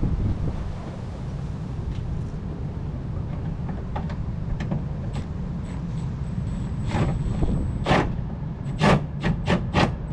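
Clicks and knocks of plastic car parts being handled and fitted into place, sparse at first, then a quick run of sharp clicks in the last few seconds, over a steady low rumble.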